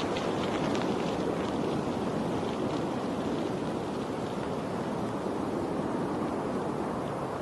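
Steady rush of running water, even and unbroken, with faint light ticks of drips or splashes through the first three seconds.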